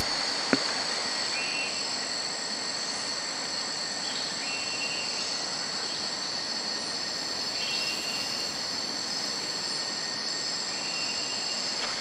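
Rainforest ambience: a steady, high-pitched insect chorus, with short chirping calls repeating every second or two over it.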